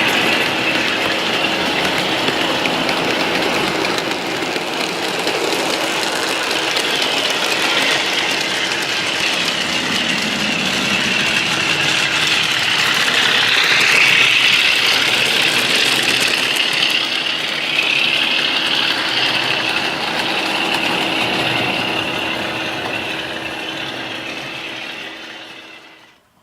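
Model train running round the layout: an electric motor whine over the noise of wheels on the rails, wavering up and down in pitch and fading away near the end.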